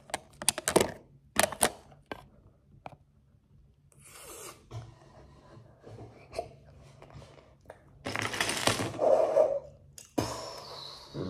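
Plastic LEGO bricks clicking and clattering as they are handled, with a few sharp clicks at the start and a longer, louder rattle about eight seconds in.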